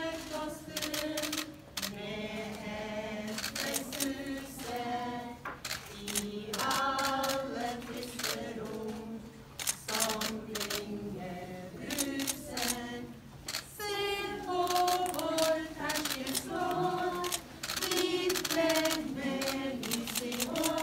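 A Lucia procession of children and women in white singing a cappella, with many camera shutter clicks sounding over the singing.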